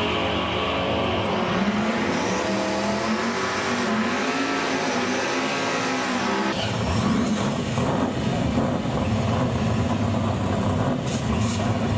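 Drag-racing car engines at full throttle accelerating away down the strip, their pitch climbing through the gears. About six and a half seconds in it changes abruptly to a car doing a burnout: engine held at high revs while the rear tyres spin.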